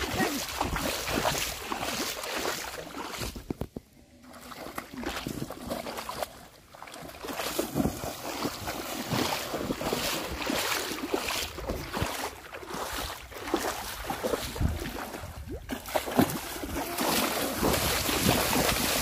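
Water splashing as a person wades and runs through shallow river water, with wind noise on the microphone. The splashing dips briefly twice early on, then picks up again.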